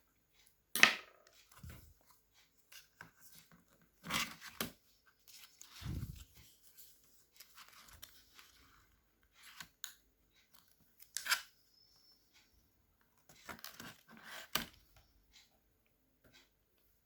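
Laptop keyboard being fitted back into a Dell Vostro 3360: scattered plastic clicks, taps and a dull thump as it is pressed and snapped into place, the sharpest click about a second in.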